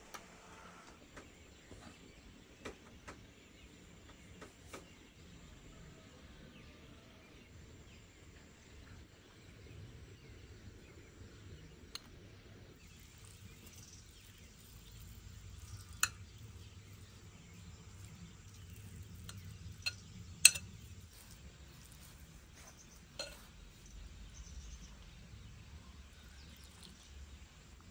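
Kitchenware clinks: light taps of forks on plates at first, then a glass bowl knocking against a metal tray as mashed pumpkin is tipped onto flour. The sharpest clink comes about 20 seconds in, over low handling noise.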